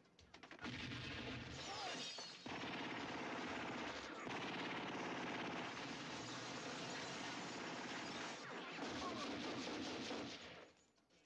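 Long, dense bursts of automatic rifle fire, with glass shattering as bottles are shot apart. The firing drops off briefly about two and a half seconds in and cuts off near the end.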